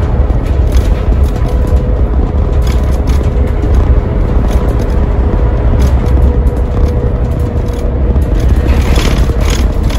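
Iveco Crossway Line bus with its Cursor diesel engine driving along, heard from the driver's cab: a steady low engine drone and road rumble with a faint steady whine over it. A few rattles near the end.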